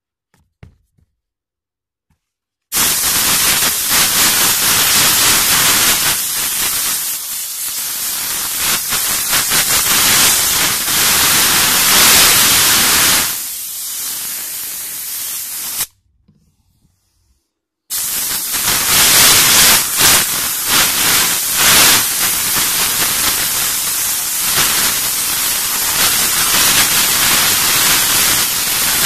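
Steam cleaner gun blasting a jet of steam: a loud hiss that starts suddenly about three seconds in, stops for about two seconds just past the middle, then starts again.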